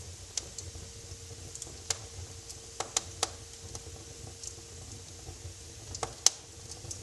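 Wood fire crackling in a fireplace: scattered sharp pops and snaps over a low steady rumble of burning, the loudest pop about six seconds in.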